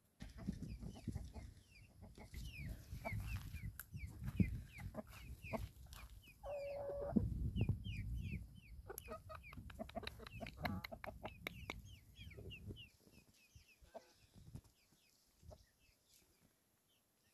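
Chickens clucking, with many short high chirping calls. A low rumble runs underneath and stops about three-quarters of the way through.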